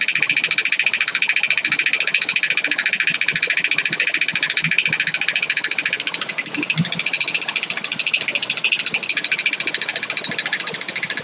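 Handheld electric vibrating tool with a round metal head, pressed against a child's cheek and running steadily with a fast, even rattling buzz.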